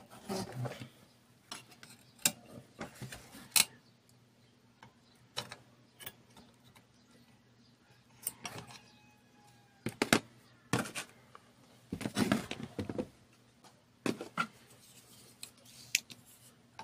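Metal tweezers and a soldering iron clicking and tapping against a TV power-supply circuit board while a capacitor is desoldered. The clicks come singly and irregularly, about a dozen of them.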